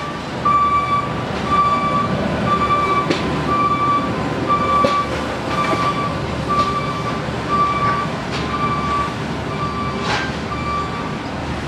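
An electronic warning beeper sounding steadily about once a second, each beep about half a second long, over a steady rumble of machinery, with a few sharp knocks.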